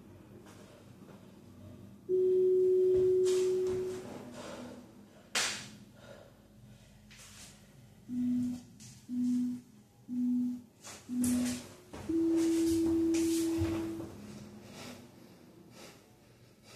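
Workout interval timer beeping: a long steady tone, then four short lower beeps about a second apart, then another long tone. The pattern marks the end of one exercise, a countdown, and the start of the next. Hard breaths sound between the tones.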